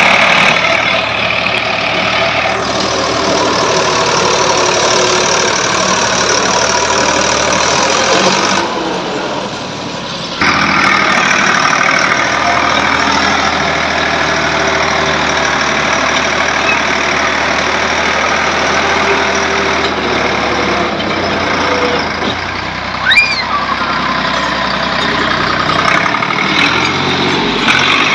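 Ford 3610 tractor running steadily while its repaired PTO is checked. The noise drops back for about two seconds about a third of the way in, then comes back at full level. There is a brief high squeak about three quarters of the way through.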